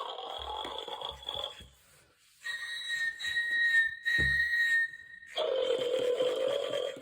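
Animatronic snoring gnome prop playing its cartoon snore: a rasping snore, then a pulsing whistled exhale, then another snore, with a few low thumps. The sound starts abruptly.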